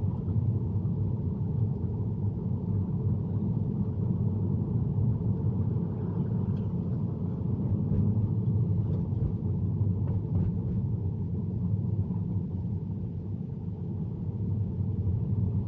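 Steady low rumble of cabin noise inside a Tesla waiting stopped in the rain, with a few faint ticks in the middle.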